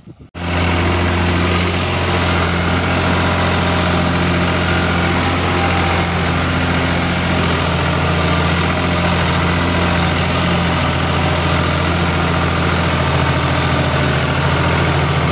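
Tractor engine running steadily at a constant speed, cutting in abruptly about half a second in.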